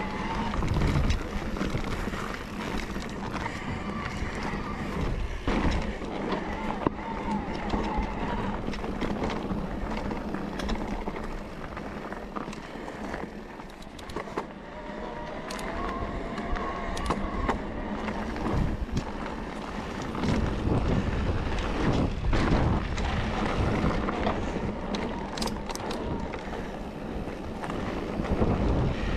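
Mountain bike being ridden over a rough trail: tyres rolling on uneven ground, with frequent knocks and rattles from the bike.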